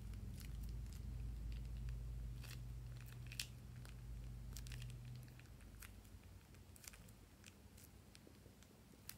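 Faint crinkling and scattered soft clicks of a plastic piping bag being squeezed as thick slime pours out of it, over a low rumble that fades about halfway through.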